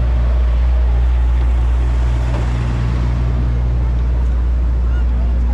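Parked ice cream truck's engine idling close by: a loud, steady low hum that weakens a little about four seconds in, over general street noise.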